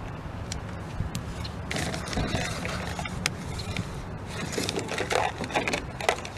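Scattered light clicks and scrapes of small metal carburetor parts being handled and fitted during reassembly, over a steady low hum.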